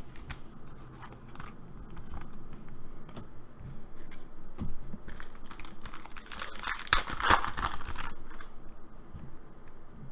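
2020 Panini Elite Extra Edition baseball cards being handled and flipped through by hand: a string of light clicks and slides of stiff card stock, with a denser rustle about seven seconds in.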